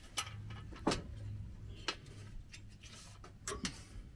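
Metal parts of a riding mower's cutting deck being handled and fitted: a few scattered sharp clicks and light knocks, about five in all, over a low steady hum.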